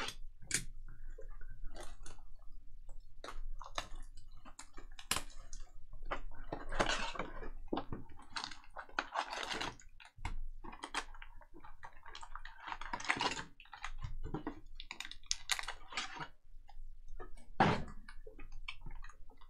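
Unboxing of a shrink-wrapped cardboard trading-card hobby box: a box cutter slices the wrap, the plastic and cardboard rustle, then foil card packs crinkle and click as they are pulled out and stacked.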